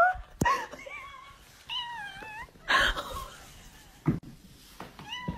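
A cat meowing a few times in short, wavering calls, with a few brief knocks and bumps between them.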